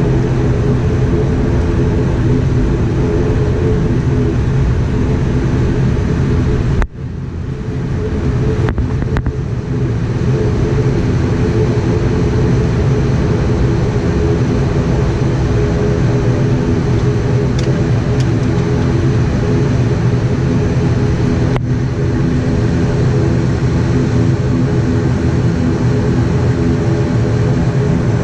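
ATR 72-600's Pratt & Whitney PW127 turboprop engines and propellers heard from inside the cabin: a steady, even drone while the aircraft taxis. About seven seconds in, the sound briefly drops out and fades back.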